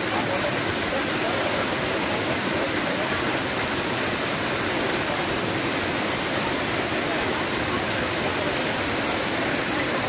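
Small waterfall pouring down a rock face into a shallow pool, a steady rush of falling water.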